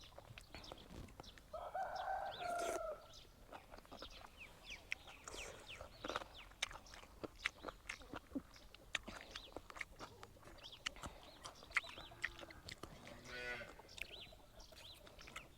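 Chickens clucking, with one longer drawn-out call about two seconds in and another shorter call near the end, among faint scattered clicks.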